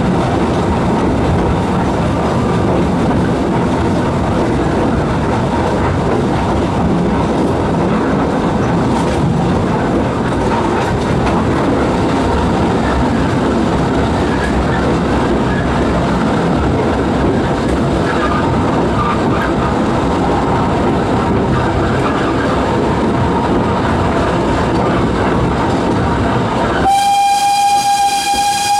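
Narrow-gauge Talyllyn Railway train running along the track, heard from a carriage: a steady rattle of wheels and coaches. Near the end the locomotive's steam whistle sounds one long, steady note.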